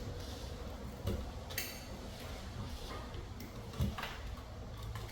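A few light, scattered clicks and taps from handling small plastic parts and wires during smoke detector wiring, over a steady low hum.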